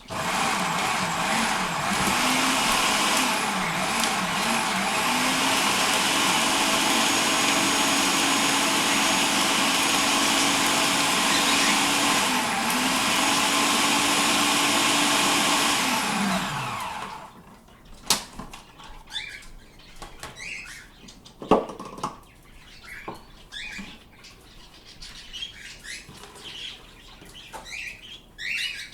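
Electric food processor running steadily for about sixteen seconds, chopping vegetables, its pitch dipping briefly twice, then switching off and winding down. Afterwards pet birds chirp softly among light clicks and a sharp tap.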